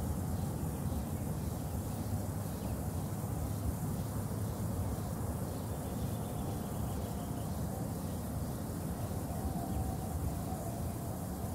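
Steady outdoor ambient noise: a low rumble with a faint high hiss.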